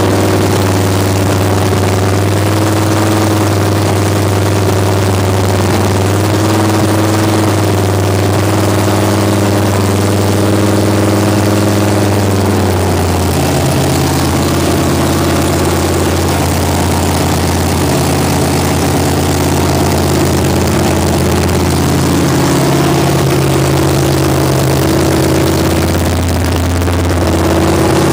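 Small-block Chevy 350 V8 in a mini pulling tractor, running steadily at idle shortly after a cold start from sitting three months. Its note shifts up a little about thirteen seconds in.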